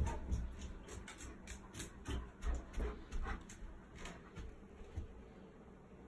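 German Shepherd moving about on carpet: soft thumps and a run of sharp clicks and rustles, thinning out after about four seconds.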